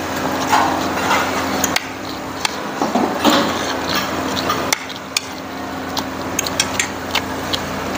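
Metal spoon and fork clicking and scraping on a plate during a meal, in scattered light clinks, over a steady hum.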